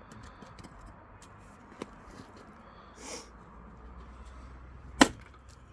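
An axe strikes a green oak log once with a single sharp, loud crack about five seconds in. A short breathy noise comes a couple of seconds before it, with a faint knock earlier.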